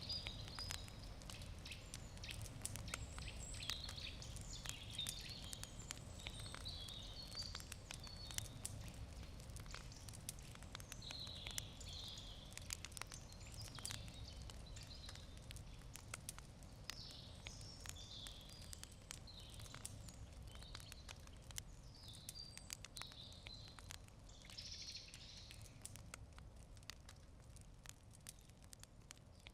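Campfire wood crackling: a faint, irregular run of small sharp pops and snaps over a low rumble, with birds chirping now and then in the background. It grows slightly fainter toward the end.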